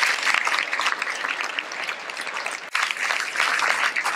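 A large seated audience applauding: many hands clapping together in a dense, steady patter, with a brief dip partway through.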